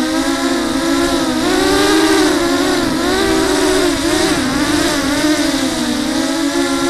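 TenTech Thug 250 quadcopter's brushless motors and propellers whining, the pitch rising and falling again and again with throttle, over a steady hiss.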